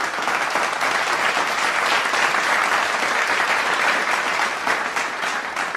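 Applause: many hands clapping in a steady, dense patter.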